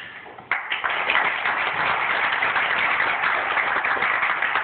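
Audience applauding, starting suddenly about half a second in.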